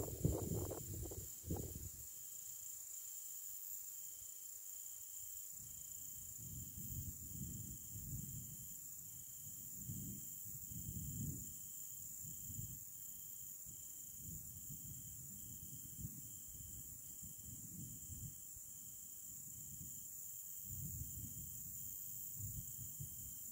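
A cricket chirping steadily, about two short chirps a second, over a steady high hiss. Low rumbles come and go, with a brief louder noise in the first two seconds.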